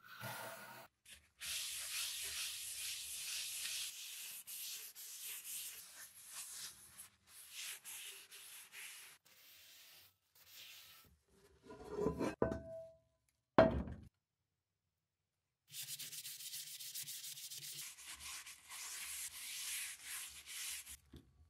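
Paper towel rubbed over a bare, sandblasted cast-iron grill pan, wiping on canola oil to season it. The rubbing comes in long stretches, broken near the middle by a short, louder handling noise and one sharp knock, the loudest sound.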